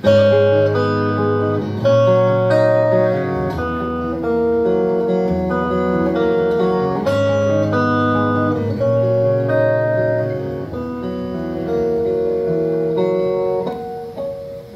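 Solo electric guitar playing a clean intro of picked chords, the notes ringing on into each other. It starts suddenly and dies away near the end.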